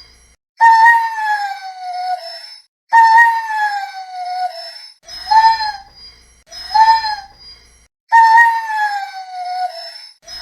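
Dog crying: a run of high-pitched whines that repeat every two to three seconds. Long whines slide down in pitch, and shorter ones rise and fall.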